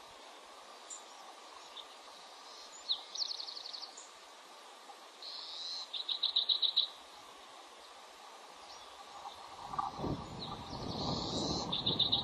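Bald eagle calling three times, each call a quick run of high, piping notes, over a steady hiss. A low rumble comes in near the end.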